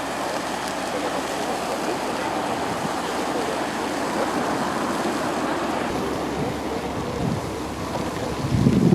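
A steady rushing noise, with a louder low rumble of wind on the microphone about eight seconds in.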